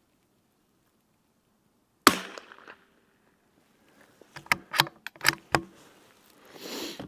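A single shot from a CZ 457 Varmint .22LR bolt-action rifle about two seconds in: one sharp crack with a short tail. A couple of seconds later comes a quick run of about five metallic clicks and knocks as the bolt is worked for the next round.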